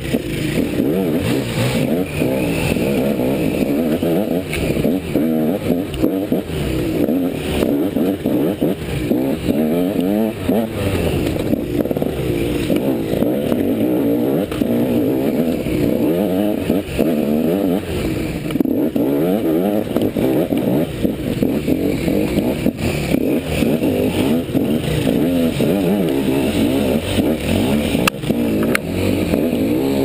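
Enduro dirt bike engine revving up and down without pause as it is ridden hard over rough trail, heard close from the rider's helmet camera, with occasional knocks and scrapes.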